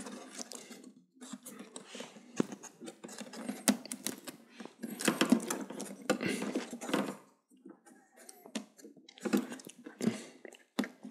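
Irregular clicks, taps and scraping of hands working inside an opened LED TV, handling plastic parts and pulling out cable connectors. It is busier for the first several seconds and sparser near the end.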